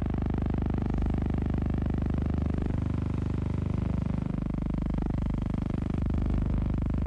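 Steady low mechanical hum with a fast, even flutter and no speech or music.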